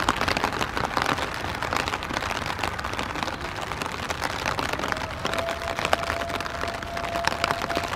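Steady rain falling, with many drops spattering close by. About five seconds in, a faint steady tone comes in and holds under the rain.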